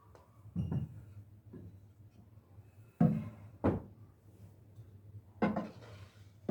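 Household items being set down and handled on a kitchen surface: several separate knocks and clunks a second or two apart, the loudest about three seconds in.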